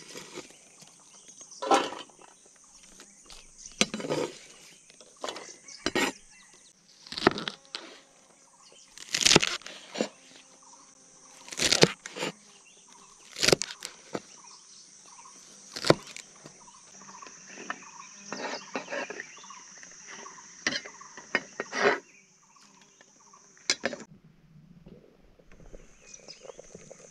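Large knife chopping through bunched green vegetable stalks onto a plastic cutting board, one sharp chop every second or two. Under it, a steady high-pitched drone of insects, which stops briefly near the end.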